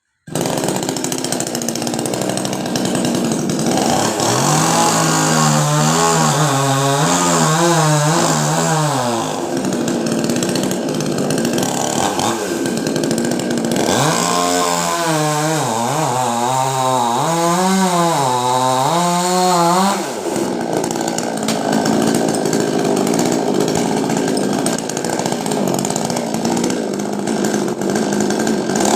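Two-stroke chainsaw running hard, cutting into coconut palm wood. It cuts in suddenly at the start, and twice its engine note wavers up and down for several seconds as it works through the cut.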